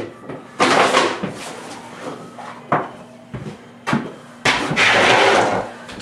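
Handling noise from someone working close to the microphone: a string of sharp knocks and clatters, then about a second of rustling or scraping just past the middle.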